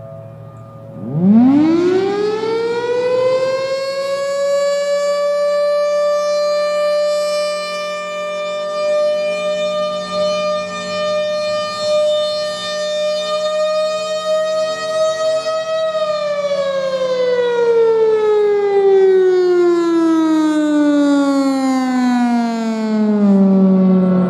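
Federal Signal Thunderbolt 1000A outdoor warning siren spinning up about a second in, rising quickly to a steady, high single-tone wail that holds for a long stretch. It then winds down slowly, its pitch falling through the last several seconds. Other sirens sound faintly underneath it.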